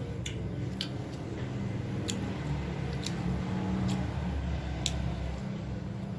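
A person eating nasi padang close to the microphone: chewing, with about five short wet mouth clicks and smacks scattered through, over a steady low hum.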